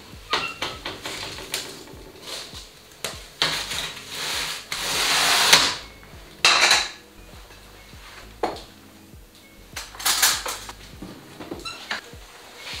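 Metal clanks, knocks and scraping at a wood-burning stove as its oven door is worked and a baking tray of cinnamon buns is slid in. A longer scrape builds to the loudest point about five seconds in, with single knocks before and after.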